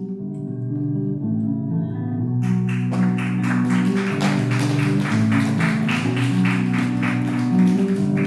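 Music: held low notes, joined about two seconds in by a steady percussive beat.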